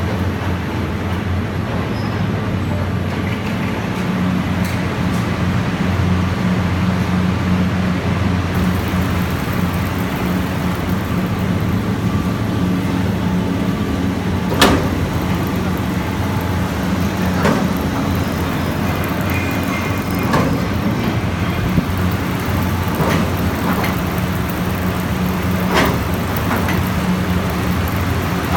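Rubber sheet cooling machine running with a steady mechanical hum. A few short knocks come through it, the sharpest about fifteen seconds in.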